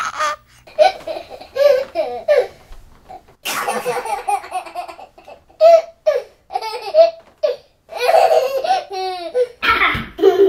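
Baby laughing in repeated bursts of high-pitched giggles and squeals, with breathy gasps between the bursts.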